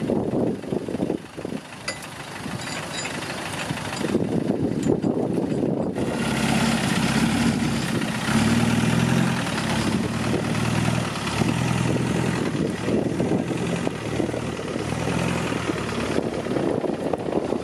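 Land Rover engine running, coming in about six seconds in, its revs rising and easing in pulses about once a second.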